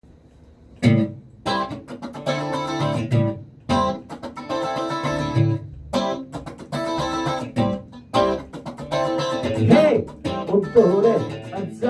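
A band playing a song's instrumental intro: guitar chords struck in short stop-start blocks over low bass notes, with brief gaps between them. In the last couple of seconds a wavering, bending melody line comes in.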